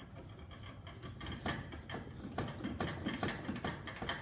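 Irregular clicks and knocks from a Joyner 650 side-by-side's suspension arm moving loosely in its mounts: its rubber bushings are worn through, with no rubber left.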